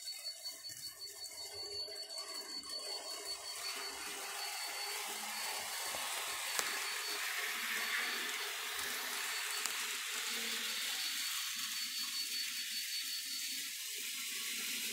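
Model train running along the layout's track: a steady hissing whir from the small locomotive motors and the wheels on the rails, growing louder about four seconds in and then holding steady.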